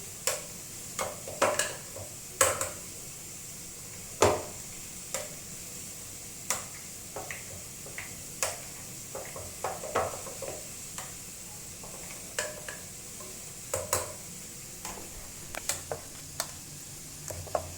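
Mashed potato being stirred and mashed in a bowl: a utensil scraping through the mash and knocking against the bowl in irregular strokes.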